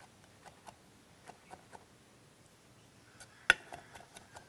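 Knife chopping prawns on a cutting board: light, uneven taps a few times a second, with one sharper, louder knock about three and a half seconds in.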